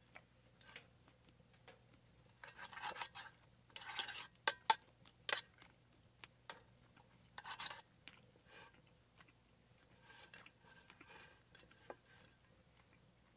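Steel knife and fork scraping and clinking against a speckled enamelware frying pan while cutting meat: several short scrapes with a few sharp clicks in the middle, then fainter scraping near the end.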